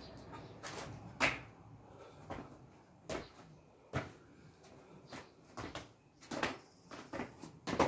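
Quick swishes and scuffs from a person moving fast through a martial-arts form, clothing and shoes against paving, about ten at irregular spacing, the sharpest about a second in and near the end.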